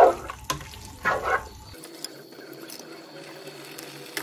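Cream poured from its container into a pot of shredded chicken and poblano mixture, in two short pours in the first second and a half. After that only a faint steady hum.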